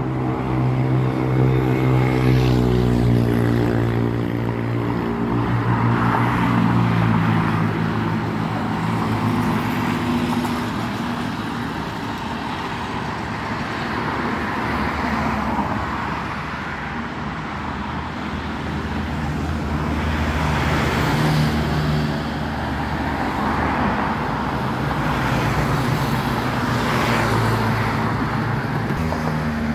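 Engine of a moving road vehicle running steadily, its pitch drifting slightly, with rushing wind and road noise that swells and fades every few seconds.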